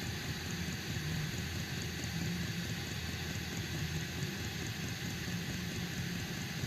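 8 kW diesel air heater running steadily on a mix of diesel and used oil, its burner and blower making an even rushing noise.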